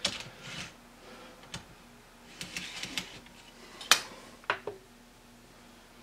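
Scattered small clicks and taps of hands handling an N-scale locomotive chassis and setting it onto plastic model track, the sharpest click about four seconds in.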